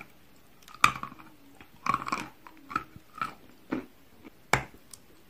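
Teeth biting into a piece of carved chalk: a sharp snap about a second in, a cluster of crunches near two seconds, a few smaller crunches, and another sharp snap near the end.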